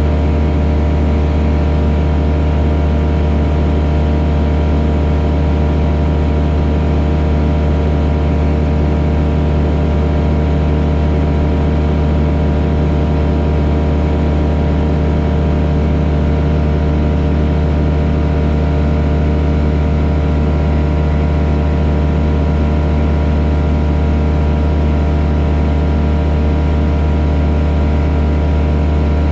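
Cockpit noise of a Pipistrel Virus light aircraft in flight: its Rotax 912 four-cylinder engine and propeller running at a steady power setting, giving an even, unchanging drone with a strong low hum.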